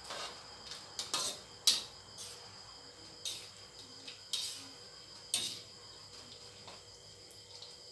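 Metal tongs scraping and clinking against a wok as small squid are turned in hot oil, about half a dozen irregular strokes over a steady faint high-pitched background.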